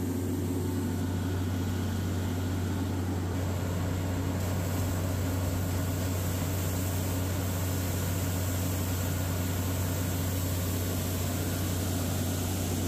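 Air rotary well-drilling rig running steadily: a constant engine drone with the hiss of compressed air blowing water and rock cuttings up out of the borehole.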